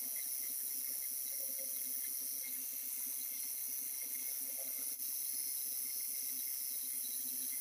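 Steady high-pitched hiss with a faint low hum under it, briefly dipping about five seconds in.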